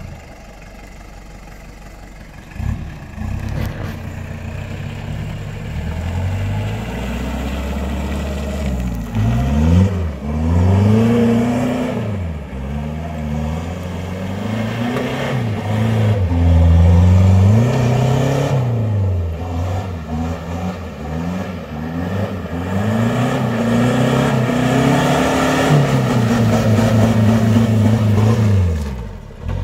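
Mitsubishi Triton's 2.8-litre 4M40 turbo-diesel four-cylinder, running on newly fitted injectors. It revs up and down again and again as the ute is driven around, after a quieter, steadier first couple of seconds.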